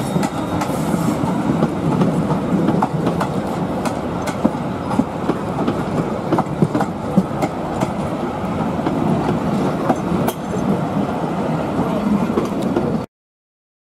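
Vintage railway passenger carriages rolling past on the track, a steady rumble with the wheels clicking and clattering over the rails. The sound cuts off abruptly near the end.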